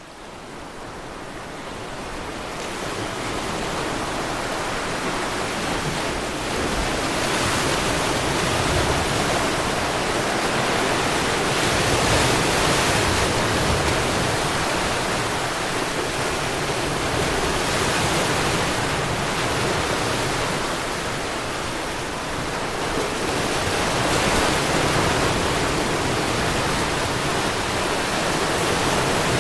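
Sea surf: a continuous rush of waves that swells and eases every few seconds. It fades in over the first few seconds.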